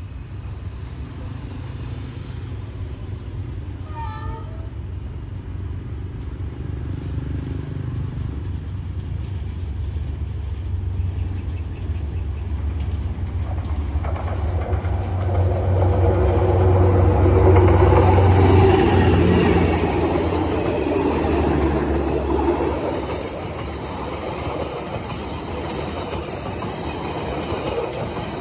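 A Vietnam Railways D19E diesel-electric locomotive approaches and passes close by. Its low engine rumble builds to its loudest a little past halfway, and then the passenger coaches roll past on the rails.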